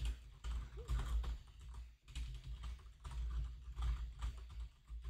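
Typing on a computer keyboard: a fairly quiet, irregular run of keystroke clicks with soft low thumps.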